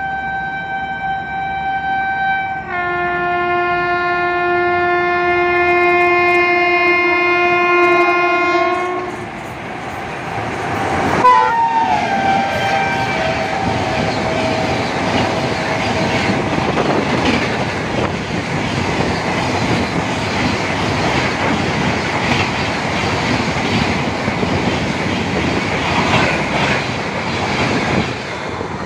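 Indian Railways 22692 Bengaluru Rajdhani express sounding its locomotive horn in long blasts as it approaches at full speed, the second blast a lower, fuller chord. About eleven seconds in the horn pitch drops as the locomotive passes with a loud clack, and the coaches rush by with wheels clattering over the rail joints.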